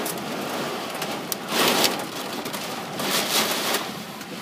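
Torrential rain pouring down, a steady hiss with a few sharp drop ticks, surging louder twice.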